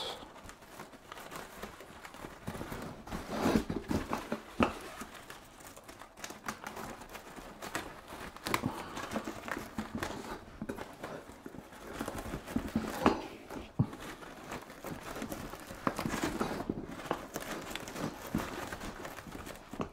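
Fabric rustling and crinkling with irregular soft taps as a fabric egg-crate grid is handled and its edges pressed onto the rim of a softbox.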